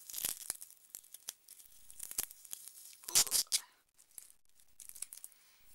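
Wrapping being crinkled and torn off a lanyard and clip by hand, with small clicks and taps throughout; the loudest rustle comes about three seconds in.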